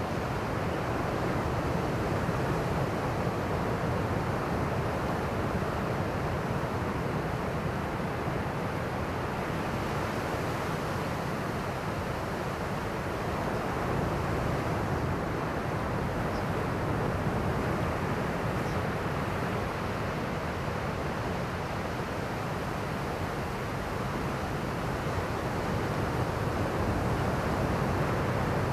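Ocean surf: waves breaking and washing ashore in a steady, continuous rush, the sea raised by swell from a passing typhoon.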